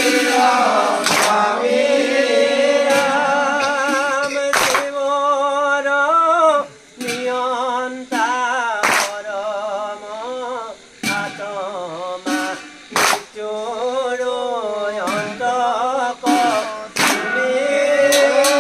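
Assamese naam-prasanga devotional singing: voices chanting a slow, ornamented melody with wavering held notes. Sharp percussive strikes fall at irregular moments through it.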